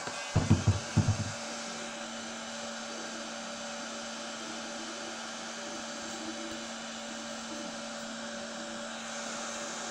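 Electric heat gun running with a steady fan whirr and a low hum, while a bitumen sound-deadening mat is softened and pressed down by hand. A few low handling thumps come in the first second or so.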